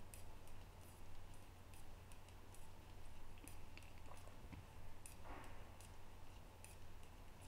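Faint, irregular clicking of metal knitting needles tapping together as stitches are purled, several clicks a second, over a low steady hum.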